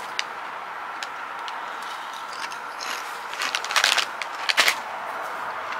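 Spicy lobster-flavoured potato chips crunching as they are chewed, a few crisp crunches clustered about three and a half to five seconds in, over a steady faint hiss.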